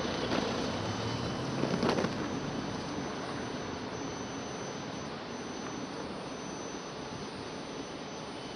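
Steady outdoor background noise, an even rush, with a faint high steady tone coming and going and a brief louder burst of noise about two seconds in.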